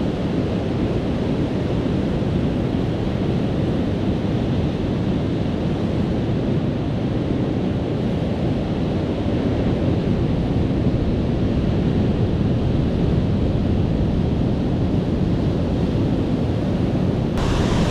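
Rough sea surf washing against the shore with wind buffeting the microphone: a steady, heavy rush of noise. About a second before the end it turns suddenly brighter and hissier.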